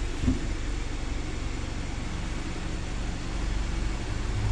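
Steady low hum with an even hiss over it, the running noise of machinery, with one brief low thump about a third of a second in.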